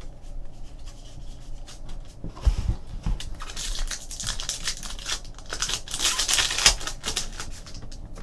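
Foil trading-card pack wrapper crinkling and tearing as it is opened by hand, with cards rustling against each other. The crinkling is loudest in the second half, and there are a few low thumps a couple of seconds in.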